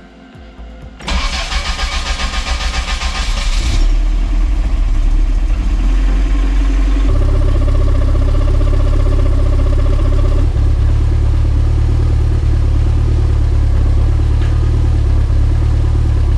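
Lotus Esprit Turbo's freshly rebuilt four-cylinder engine on its first start: the starter cranks it in a quick, even rhythm for about three seconds, then it catches and runs steadily. For a few seconds after it starts, a thin high squeak from the vacuum pump runs alongside the engine.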